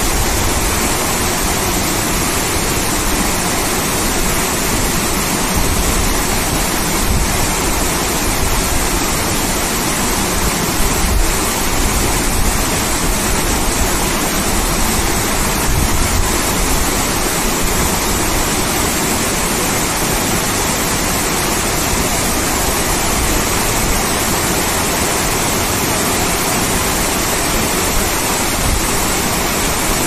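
A small waterfall close up, sheeting down a rock face into a pool: a loud, steady rush of falling water.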